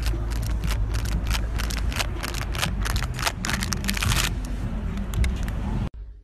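Wind buffeting a phone microphone outdoors: a loud, steady low rumble, with a rapid run of clicks and rattles over the first four seconds. It breaks off abruptly near the end.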